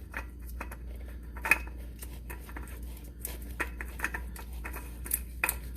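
Scattered light clicks and clinks of parts being handled during an oil filter change, with one sharper knock about a second and a half in.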